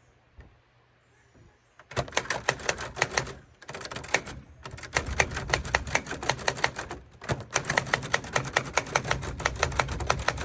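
Typewriter keys striking in fast runs of clicks, starting about two seconds in after a quiet moment, with two short pauses between runs.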